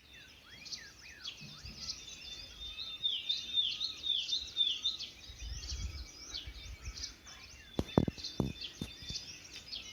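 Small songbirds chirping and calling, many quick downward-sliding calls repeated over and over, busiest in the middle. A few sharp clicks come about eight seconds in.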